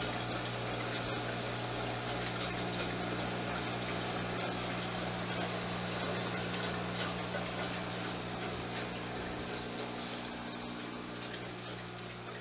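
Aquarium pump running steadily with bubbling, churning water and a low motor hum, easing slightly near the end.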